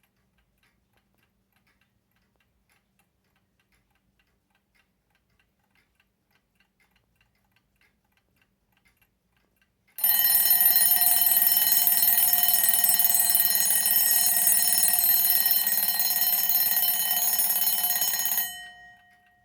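Herweg mechanical alarm clock ticking faintly, then its bell alarm goes off about halfway through and rings loudly and continuously for about eight seconds. It stops abruptly, leaving the bell's tone fading for a moment.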